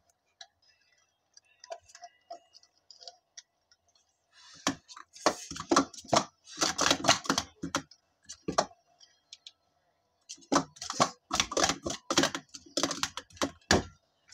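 Plastic sport-stacking cups clattering as three stacks of three are rapidly upstacked and downstacked: a quick run of sharp clicks and knocks starts about four and a half seconds in and lasts a few seconds, then a second run starts a little past the middle and goes on until near the end.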